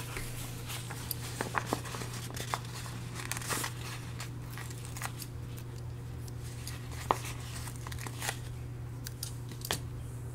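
Paper sticker sheets and planner pages being handled: soft rustling, a sticker being peeled off its backing, and scattered small clicks and taps, one sharper click about seven seconds in. A steady low hum runs underneath.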